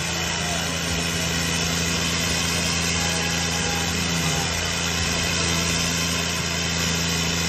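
Two tractor diesel engines, a John Deere 5050 D and a New Holland 3630, running hard and steady under full load, locked in a tug-of-war pull.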